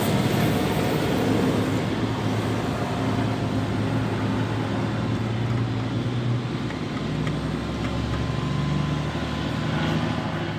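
Steady low rumble of motor-vehicle engine or traffic noise, its hum shifting slightly in pitch over the seconds.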